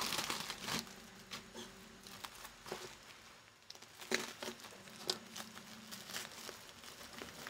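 Plastic packaging crinkling and rustling in scattered short bursts with small ticks, as a pink plastic padded mailer is slit with a small box cutter and pulled open by hand.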